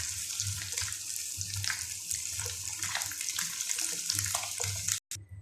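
Fish pieces sizzling and crackling as they shallow-fry in hot oil, nearly done. The sizzle stops abruptly about five seconds in.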